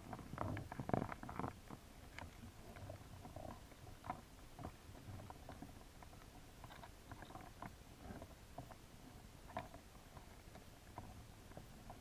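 Irregular clicks and taps of signal crayfish claws and legs on a plastic mesh trap, heard underwater: a cluster of louder knocks in the first second and a half, then scattered single clicks over a low rumble.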